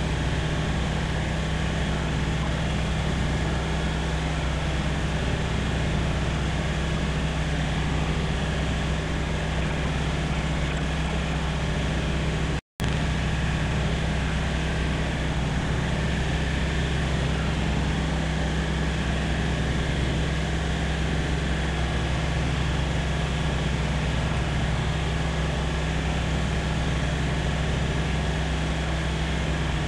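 Light aircraft's piston engine and propeller droning steadily at constant power, heard from the cockpit. The sound cuts out for an instant about 13 seconds in.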